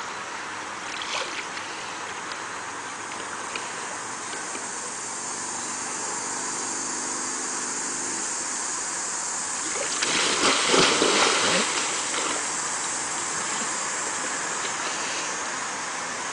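Pool water splashing heavily for about two seconds, roughly ten seconds in, as a man tumbles off an inflatable pool chair and it tips over. A steady hiss runs underneath.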